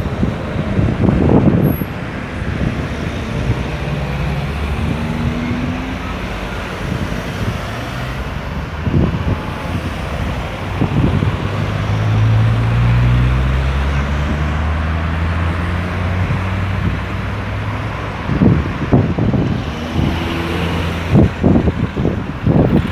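Steady road traffic circulating a busy roundabout: cars and trucks passing with engine and tyre noise. About halfway through, a heavy vehicle's deep engine hum grows louder and then fades as it goes by.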